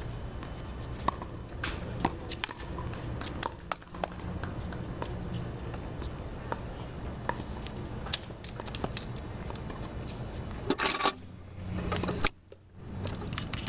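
Outdoor background with a steady low rumble and scattered faint clicks, then a burst of rustling handling noise about 11 seconds in as the camera is moved.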